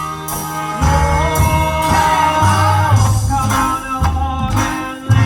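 Live acoustic band playing an instrumental passage: a double bass plays pulsing low notes, a violin carries a wavering melody, and short percussive clicks run through it.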